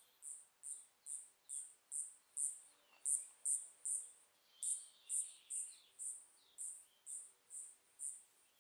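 Faint insect chirping, cricket-like: evenly repeated high chirps, about three a second, with faint bird calls behind them.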